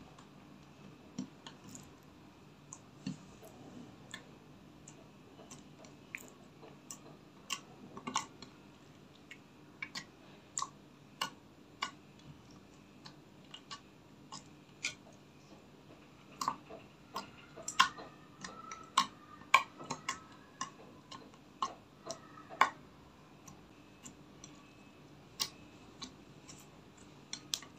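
Clear slime being squeezed and kneaded by hand, making irregular sticky clicks and small pops, which come thicker and louder about two-thirds of the way through.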